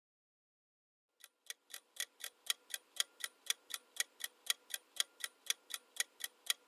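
Clock-ticking countdown sound effect: evenly spaced ticks at about four a second, starting about a second in after a brief silence, timing the guess.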